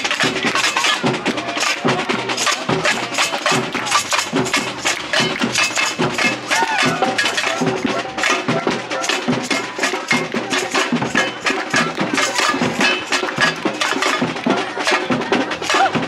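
Samba percussion band (bateria) playing a busy, steady samba rhythm of drums with sharp, high knocking strikes layered on top.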